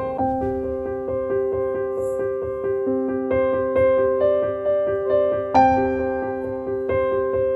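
Background piano music: a steady flow of notes in repeating broken chords.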